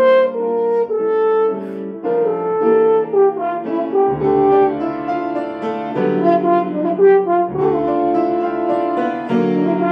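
French horn playing a slow melody, a string of sustained notes that move smoothly from one pitch to the next.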